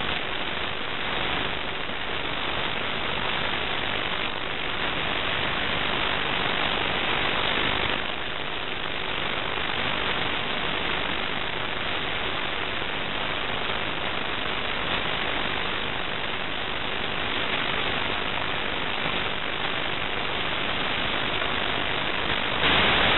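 Steady rushing hiss on the audio of an analog FPV video link. It jumps louder near the end as the video signal breaks up into interference.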